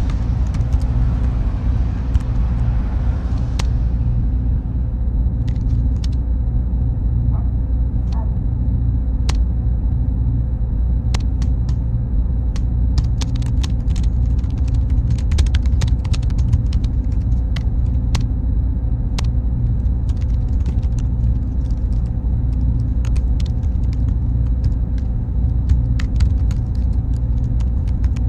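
Steady low server drone, loudest throughout, under irregular computer-keyboard typing clicks. A faint high steady whine holds from about four seconds in, and a soft hiss fades away over the first few seconds.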